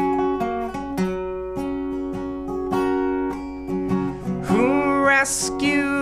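Solo acoustic guitar picked in a steady pattern of chords, with a male voice starting to sing over it near the end.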